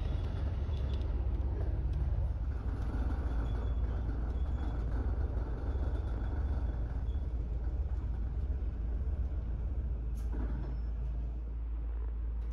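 Double-decker bus heard from inside on the upper deck, driving along: a steady deep engine and road rumble. A short sharp click comes about ten seconds in.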